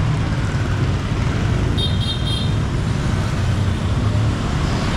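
Steady street traffic, motor vehicles running past, with a short high beep of a horn about two seconds in.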